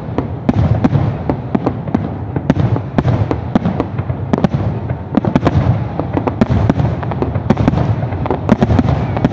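Fireworks display: aerial firework shells bursting in rapid succession, several sharp bangs a second over a continuous low rumble.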